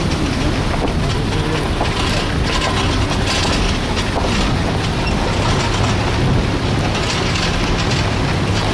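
Steady engine and road noise heard from inside a moving vehicle on an unpaved road, with frequent rattles and knocks from the rough surface.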